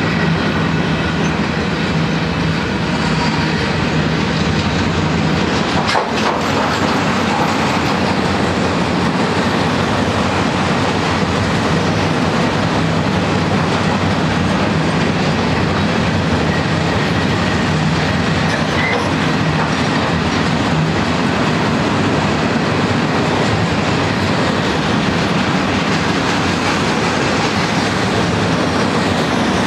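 Freight train's loaded flatcars rolling past close by: a steady, loud rumble of steel wheels on the rails, with a single clank about six seconds in.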